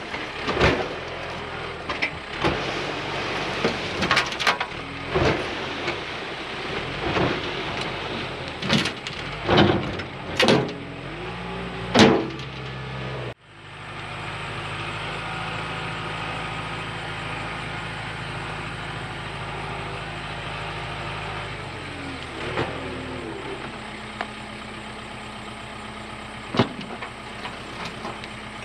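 Diesel excavator working: the engine runs steadily under many sharp clanks and knocks. After an abrupt cut about halfway through, there is a smoother steady engine drone that changes pitch near the last third.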